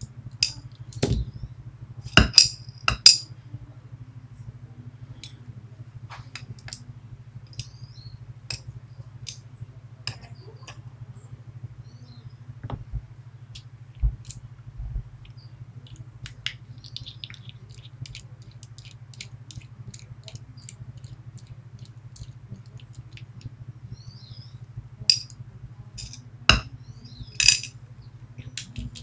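Small metal parts of a Medeco lock clicking and clinking as it is taken apart by hand, with a few sharper clinks about a second in and again near the end. A steady low hum runs underneath.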